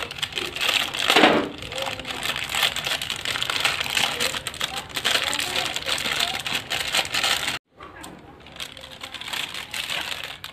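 Plastic instant-noodle packet crinkling and rustling in the hands as it is opened and the dry noodle block is taken out. The sound cuts off sharply about three-quarters through and then carries on more quietly.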